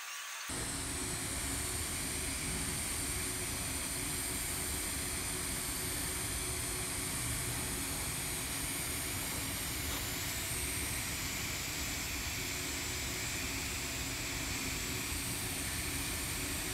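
TIG welding arc on carbon steel pipe, a steady even hiss, during the hot pass run at about 145 amps.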